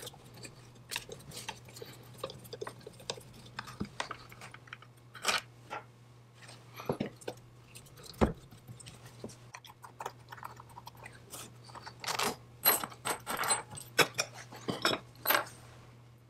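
Screwdriver clicking and scraping on the screws and cast cover of a 1954 McCulloch 99 chainsaw's carburetor as the cover is unscrewed and worked loose. The taps and clicks come thick and fast in the last few seconds.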